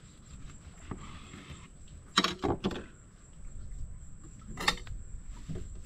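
A few sharp knocks and clatters from a knife and food being handled on a boat's fibreglass deck: a small click, then two or three knocks about two seconds in and one more near five seconds, over a faint low rumble.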